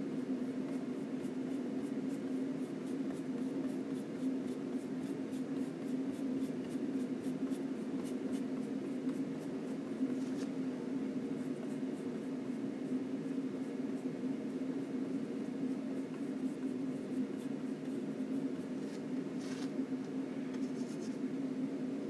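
Flat oil-paint brush stroking and dabbing on a linen panel: faint soft scratches about three or four a second for the first several seconds, and again briefly near the end, over a steady low hum.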